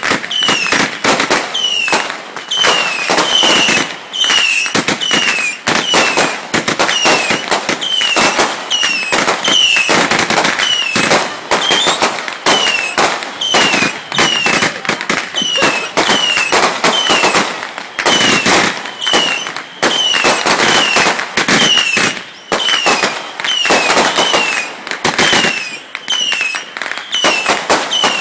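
Consumer fireworks going off in a continuous rapid barrage of bangs and crackles. A short falling whistle repeats about once a second.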